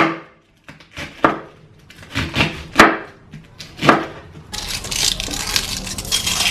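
Kitchen knife chopping cabbage on a wooden cutting board, about seven separate chops at uneven intervals. After about four and a half seconds the chops give way to a steady hiss from the pan of simmering ramen broth as the cabbage is dropped in.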